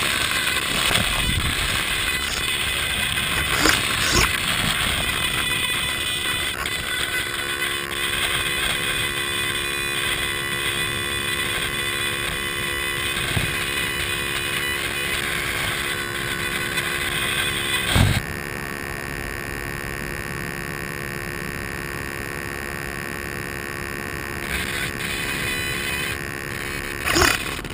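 Traxxas Summit RC truck's electric motor and gear train whining steadily while driving over sand, heard through a camera mounted on the truck. It eases a little about two thirds of the way through.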